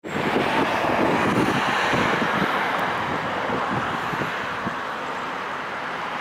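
Wind buffeting the microphone in irregular low thumps over a steady outdoor hiss that eases off slightly after about two seconds.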